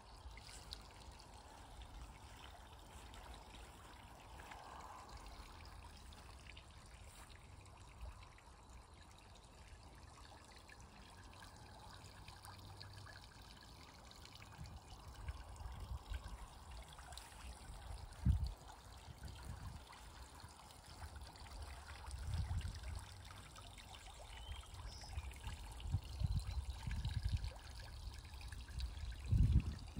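Steady trickle of running water, with irregular bursts of low rumble from about halfway in.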